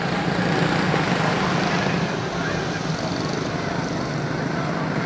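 A pack of quarter midget race cars with Honda four-stroke single-cylinder engines racing around the oval, their engines blending into one steady drone.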